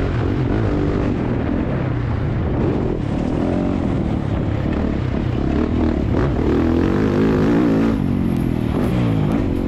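Motocross bike engine at full ride, revving up and easing off again and again through the gears as the bike accelerates and slows over a rough dirt track, heard from the rider's helmet camera.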